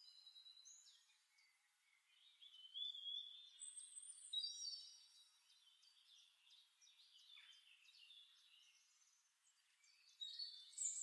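Faint bird chirps in two short spells, around three to five seconds in and again near the end, with near silence between.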